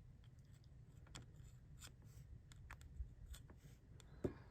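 Faint, scattered light clicks and taps from an HO-scale die-cast model locomotive being handled, with one sharper knock about four seconds in.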